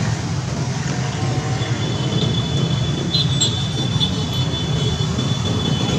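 Street traffic, with motorcycle and car engines running as they pass, making a steady low rumble. A thin, steady high tone joins in about two seconds in.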